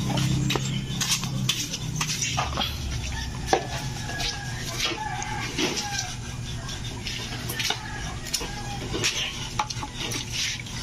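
A bolo knife scraping the hair off a scalded pig's skin in short, irregular strokes.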